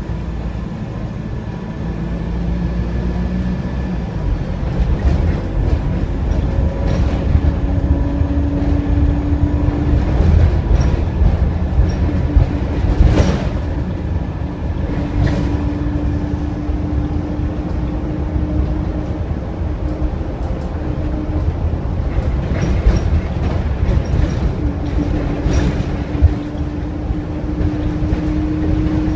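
Inside an Optare Versa single-deck bus on the move: steady engine and road rumble, with a hum that comes and goes three times, climbing slightly in pitch, and scattered rattles and knocks from the bodywork.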